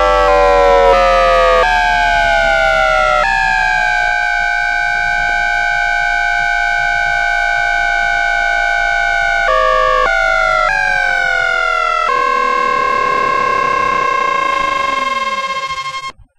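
GE two-level GTO-VVVF traction inverter and motor of an MBTA 1800 series car during braking, picked up by an inductive pickup so only the electrical whine is heard. Several tones fall together and jump in pitch each time the inverter changes synchronous pulse mode, then about 12 seconds in it settles onto the steady tone of the 535 Hz asynchronous carrier as the train slows, and it cuts off suddenly near the end.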